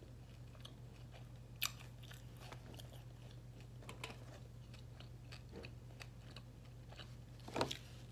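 Close-miked chewing of pizza: soft wet mouth clicks and crackles, with two sharper crunches, about one and a half seconds in and near the end, over a low steady hum.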